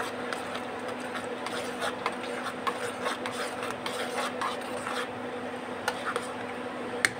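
A spoon stirring corn kernels in a pot of boiling water, with many light scrapes and taps against the pot over a steady bubbling hiss.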